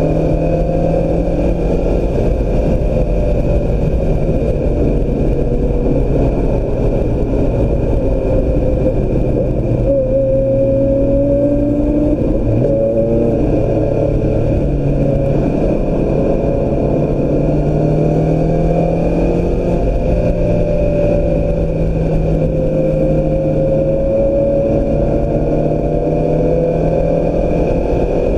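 2016 Mazda MX-5 Miata's four-cylinder engine running hard on track, its note rising and falling slowly as the car accelerates and slows, over steady road and wind noise.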